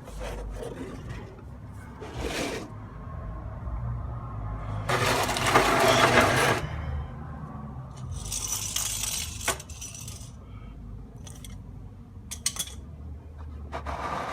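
Tools, funnels and an oil drain pan being gathered from under a car: scattered metallic clinks and clatters, with a longer scraping rush about five seconds in.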